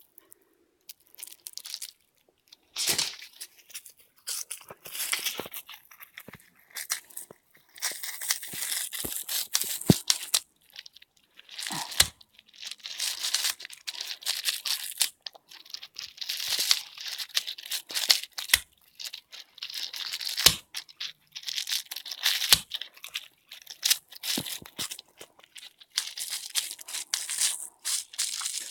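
A pet ripping and chewing apart a cat toy: irregular tearing and crinkling in short spells, with a few sharp clicks.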